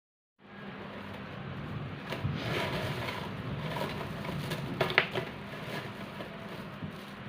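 Quiet room noise with a steady low hum and light handling clicks and rustles, with one sharper click about five seconds in.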